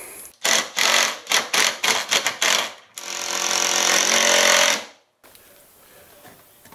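Cordless impact driver driving a screw into the timber frame of a loft hatch. It runs in several short stuttering bursts, then runs steadily for about two seconds and cuts off suddenly.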